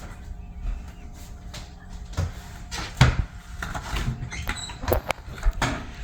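A few scattered knocks and clicks of things being handled and set down, the loudest about three seconds in.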